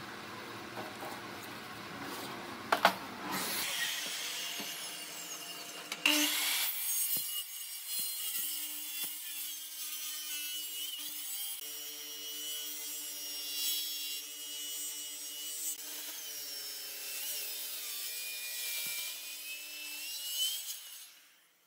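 Light scratching and a sharp click as a pen marks a line along a square, then a Makita circular saw starts and cuts through a thick wooden slab. Its blade rasps through the wood over a steady motor whine, and the sound stops abruptly just before the end.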